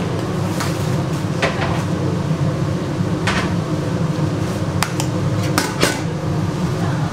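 Kitchen clatter: scattered clinks and knocks of utensils and dishes, several in quick succession past the middle, over a steady low hum.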